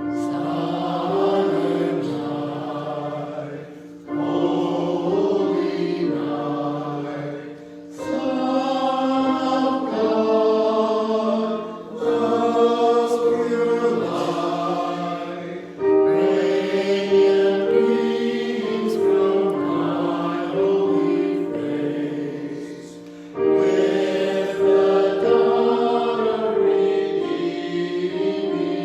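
A choir singing a slow piece in long, held chords, phrase after phrase about every four seconds.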